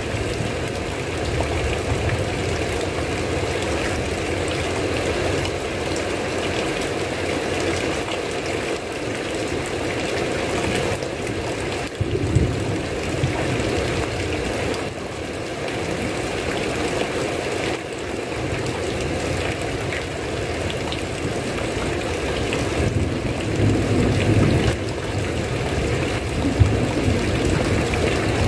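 Steady heavy rain falling, an even hiss with no letup, with a few brief low rumbles, about twelve seconds in and again a little past twenty seconds.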